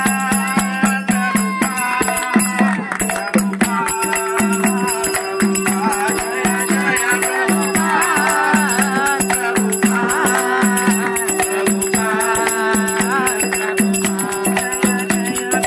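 Devotional kirtan: a mridanga barrel drum beating a steady rhythm under singing into a headset microphone, with hand claps. A steady held tone joins about four seconds in.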